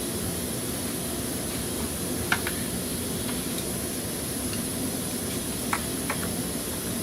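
Steady hissing background noise, with a few short sharp clicks from hoses and clips being handled, twice in quick pairs.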